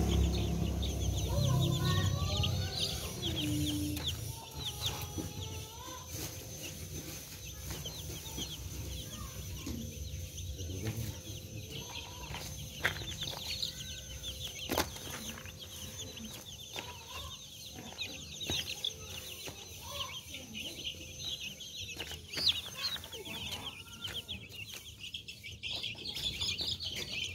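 A flock of chicks peeping continuously, many short high cheeps overlapping, with scattered clicks; a low rumble fills the first few seconds.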